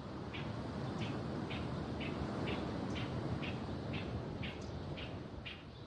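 Ocean waves washing in, swelling to a peak about halfway through and then easing off. Over them a bird chirps in a steady rhythm, about two short calls a second.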